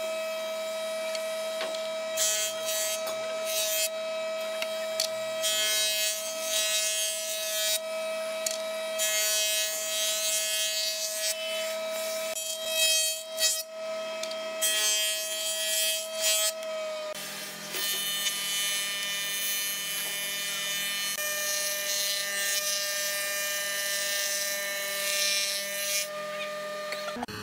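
Woodworking planing machines (a jointer, then a thickness planer) running with a steady high whine, with rough hissing bursts as boards are fed through the cutter head and planed. The machine tone shifts about two-thirds of the way in.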